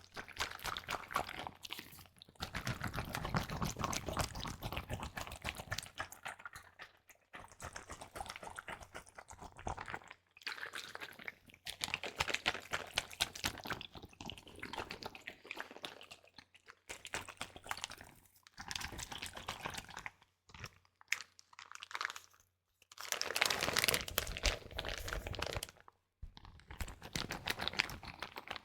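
Close-miked crinkling and crackling in bursts of one to four seconds, with short pauses between them.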